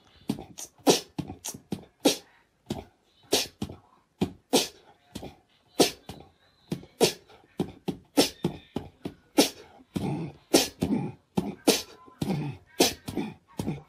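An irregular series of short, sharp clicks, about two or three a second.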